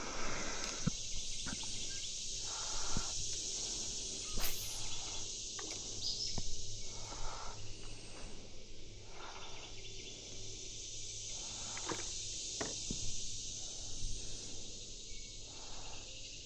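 Steady high-pitched chorus of summer insects, with a few light clicks and knocks now and then.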